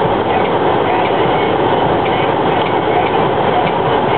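Steady in-cabin driving noise of a 1990 Chevrolet Lumina with its stock 3.1-litre V6: engine and road noise running at an even level, with no rise or fall in pitch.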